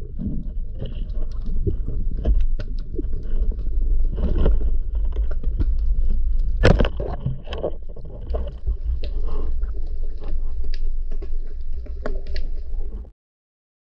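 Muffled underwater sound: a steady low rumble with many scattered clicks and crackles, broken about halfway through by one sharp, loud crack of a speargun firing. The sound cuts off abruptly near the end.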